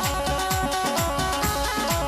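Instrumental interlude of a devotional bhajan: a keyboard melody in short stepped notes over a steady electronic drum beat, with low drum hits that drop in pitch.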